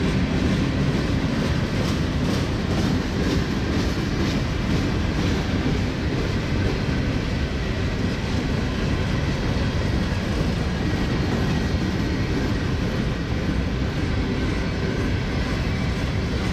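Empty railway hopper cars rolling past at low speed, a steady rumble with their steel wheels clacking over the rail joints, the clacks most distinct a few seconds in.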